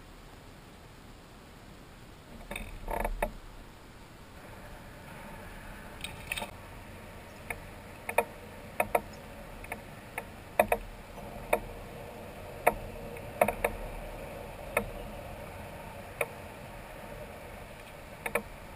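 Fishing tackle being handled in a kayak: a short clatter about three seconds in, then sharp, irregular clicks about once a second from the rod and reel.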